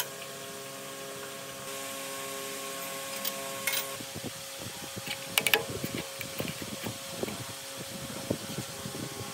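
Steady mechanical hum, part of which cuts out about four seconds in, with scattered clicks and knocks of hand work on metal parts; a cluster of sharper knocks comes a little after halfway.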